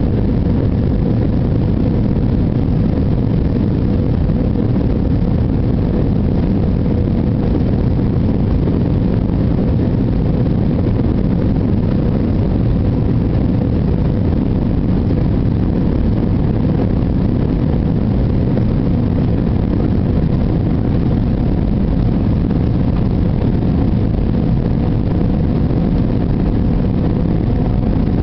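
Airbus A321-200 jet engines running at takeoff power: a steady, even rumble with faint steady hums through it.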